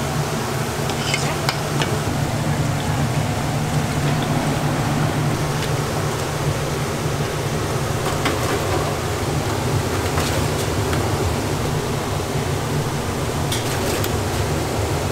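Battered Korean fritters (twigim) sizzling steadily in a large fryer of hot oil. A few light metal clinks come from tongs and a wire mesh strainer as the fried pieces are lifted out.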